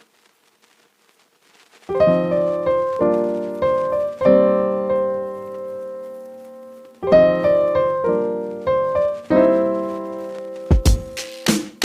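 Background music: about two seconds of near silence, then a keyboard playing chords and notes that ring out and fade, with drums coming in near the end.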